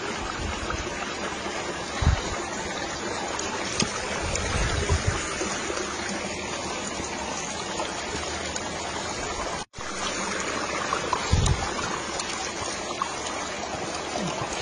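A stream trickling and running steadily over rocks, with a few low bumps on the microphone, and the sound cuts out for an instant near the middle.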